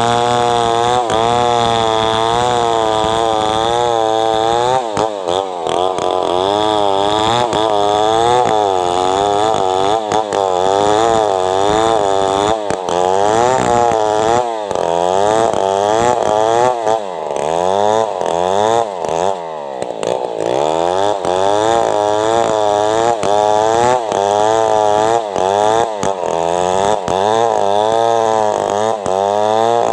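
Self-assembled chainsaw running at high revs, ripping lengthwise through a log. The engine pitch wavers up and down about twice a second under load and drops further a few times as the cut loads it.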